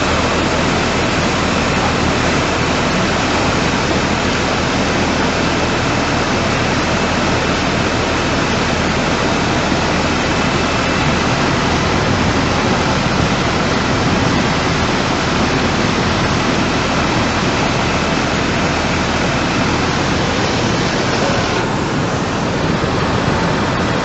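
Floodwater rushing in a loud, steady torrent.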